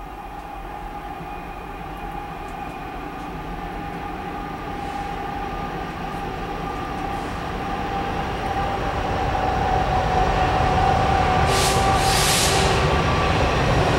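Kansas City Southern diesel locomotives (an SD70ACe leading an ES44AC) approaching, their engine rumble and a steady tone growing steadily louder as they near. Two brief hisses sound near the end.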